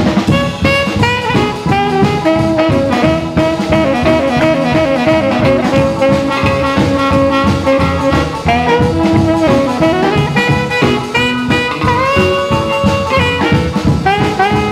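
Background music: the instrumental break of an upbeat rock-and-roll song, a lead instrument playing held melody notes over a steady drum beat.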